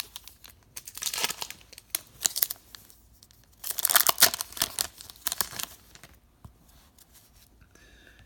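A hockey card pack wrapper being torn open and crinkled, in several irregular bursts of rustling and tearing, the longest and loudest about four seconds in.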